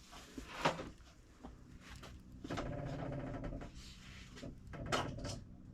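Car engine idling with a rhythmic chatter, swelling louder for about two seconds in the middle, with a couple of sharp knocks. The chatter comes from a leak being hunted, which the owner suspects is a spark plug not screwed in properly.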